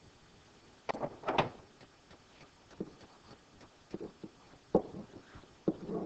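Faint, irregular taps and scratches of a stylus writing on a tablet or pen screen: a handful of short clicks spread over a few seconds, the loudest about a second in.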